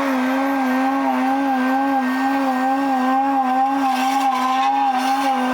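Compaction roller's engine running as it rolls gravel, played back sped up several times so it comes out as a steady high-pitched whine that wavers slightly in pitch. Some extra hiss and crackle joins it about three to five seconds in.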